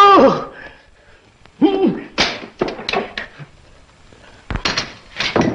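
Irregular knocks and thuds of a staged scuffle with swung sticks, about ten sharp hits in two clusters. A shouted cry falls away at the very start, and a short cry comes about a second and a half in.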